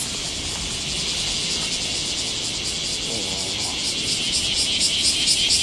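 Cicadas buzzing in a loud, high-pitched chorus, which turns into a pulsing call of about five beats a second from about four seconds in.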